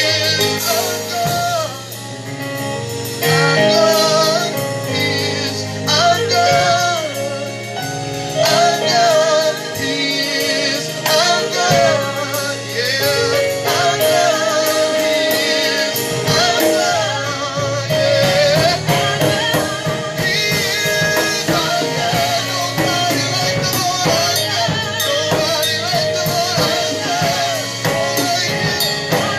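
Gospel worship song: a singer with a wavering, held voice over instruments and a drum kit, the drumming growing busier about halfway through.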